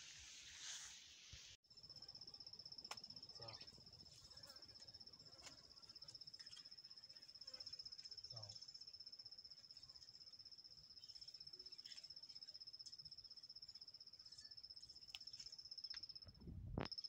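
A cricket trilling steadily in a continuous, fast-pulsing high-pitched note. It starts after a brief hiss and a cut about a second and a half in. A few faint clicks and a low thump near the end sit under it.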